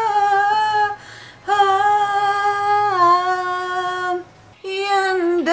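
A woman singing unaccompanied in long held notes with short breaths between them, the pitch stepping down from note to note and wavering near the end.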